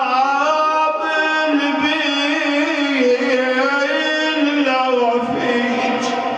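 A man's voice chanting an Arabic lament through a microphone in one long melismatic line, held notes sliding slowly up and down without breaks between syllables, easing off about five seconds in.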